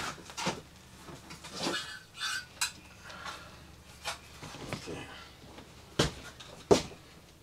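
Clattering and knocking of the white plastic air-distribution pieces and metal mounting frame of an RV rooftop air conditioner's ceiling assembly as they are pulled down from the ceiling opening and handled, with two sharp knocks near the end.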